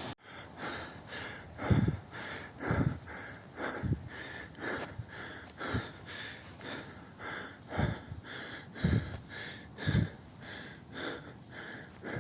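A person breathing hard in a steady rhythm close to the microphone, about two breaths a second, with heavier low thumps roughly once a second: the panting of a trekker walking uphill.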